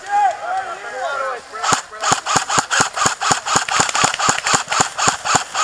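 Airsoft gun firing a steady string of sharp shots, about four to five a second, starting a little under two seconds in after a brief shout.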